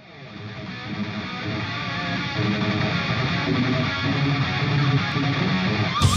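Background rock music led by strummed electric guitar, fading in over the first couple of seconds.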